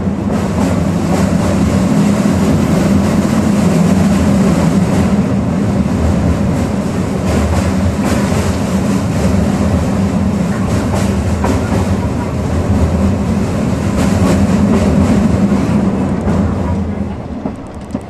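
Diesel railcar running along the track, heard at the gangway between two coupled cars: a steady, loud running noise of wheels on rails and engine. It eases off about a second before the end.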